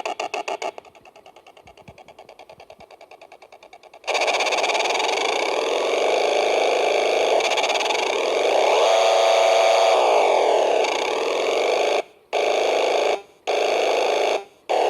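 A vintage Nikko RC boat radio controller's electronic sound effect through its small speaker: a harsh noisy buzz. It pulses rapidly, falls to a faint pulsing for a few seconds, then comes on loud and steady, and cuts out abruptly three times near the end. The sound-effect circuit is malfunctioning.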